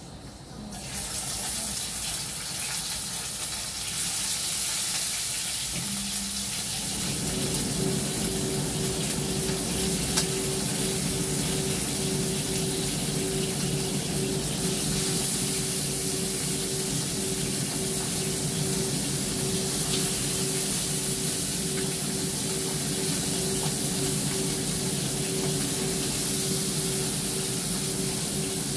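Kitchen range hood fan switched on about a second in, running with a steady rush of air; a low motor hum joins about seven seconds in and holds.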